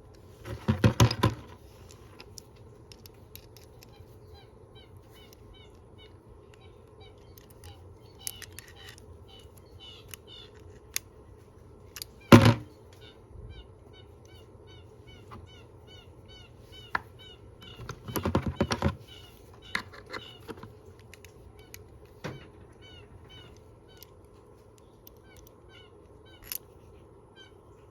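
Scattered small clicks and knocks from handling a multitool and its parts, with one sharp knock about twelve seconds in. Two short, louder, noisy bursts come about a second in and around eighteen seconds in, and faint chirping runs through the middle.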